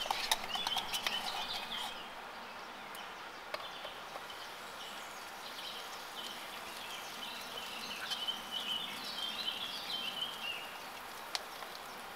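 Songbirds singing: a warbling song about a second in and again from about six to eleven seconds, over a steady faint outdoor hiss with a few scattered clicks.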